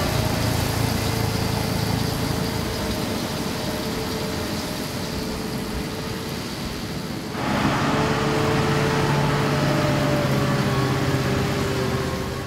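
Tractor engine and Vermeer round baler running in the hay field, a steady mechanical drone with a few held tones. It grows abruptly louder and brighter about seven seconds in.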